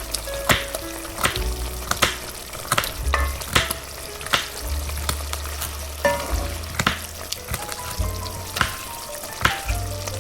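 Food sizzling in a frying pan, with a utensil knocking against the pan about once every 0.8 seconds as the food is stirred, over soft background music.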